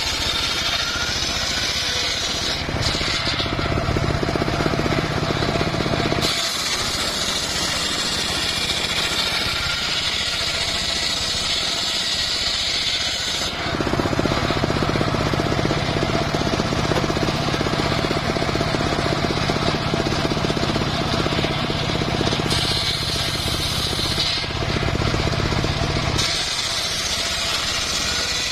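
Homemade engine-driven circular sawmill running as its large blade rips a log lengthwise into boards. The sound switches every few seconds between a higher, hissier sound and a deeper, heavier one.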